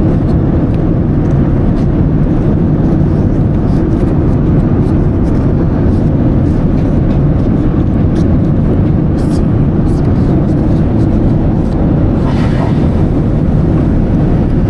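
Steady airliner cabin noise in flight: a constant low rumble and rush of engines and airflow.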